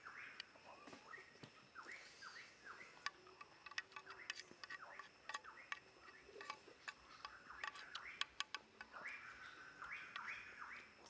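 Small birds chirping, with short hooked notes repeating throughout. From about three seconds in to near the end, a metal spoon clicks and scrapes against a small metal pan as corn kernels are scooped.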